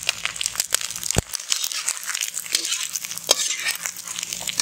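Diced goat liver sizzling and crackling in hot oil in a black iron kadai, with a sharp knock about a second in and a slotted metal spatula scraping the pan as it is stirred near the end.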